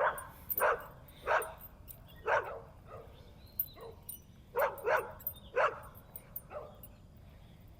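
A dog barking: about eight short barks at uneven intervals, with a gap in the middle.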